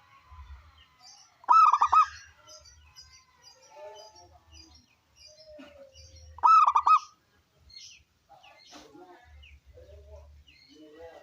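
Zebra dove (perkutut) singing: two loud short bursts of quick, ringing coo notes about five seconds apart, with faint chirps of other birds between.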